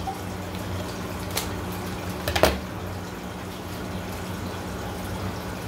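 Scissors cutting open a plastic fish shipping bag: two sharp clicks about a second apart, the second louder. Underneath runs the steady low hum and water noise of a running aquarium.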